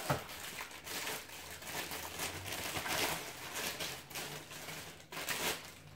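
Plastic packaging crinkling and rustling as a vacuum cleaner attachment is unwrapped and handled, with scattered light clicks of hard plastic.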